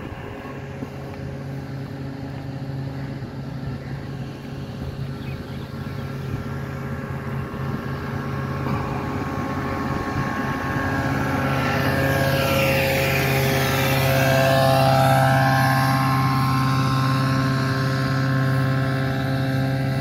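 Truck-mounted sprayer running: a steady droning engine note that grows louder as the truck comes closer, and it is spraying what the walker takes to be disinfectant.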